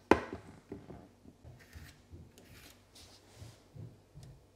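A sharp knock at the start, then quiet pencil scratching and light taps as a long spirit level is shifted on a wooden dishwasher door panel, marking the door's midpoint.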